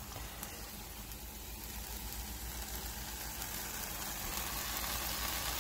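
Tomato and onion sauce sizzling steadily in a frying pan.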